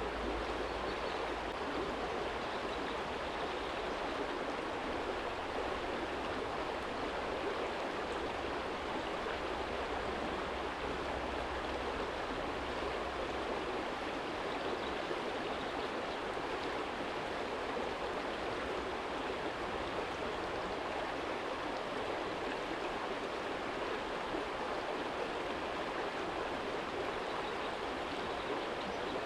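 Small shallow stream flowing over a stony bed: a steady, even rush of water. A low rumble sits underneath for the first half, then fades.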